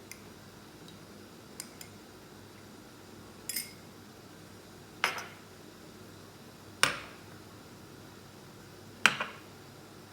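A spoon clinking against a metal pan while oil is spooned in for the tempering: a few light taps, then three sharp clinks about two seconds apart, each with a short ring.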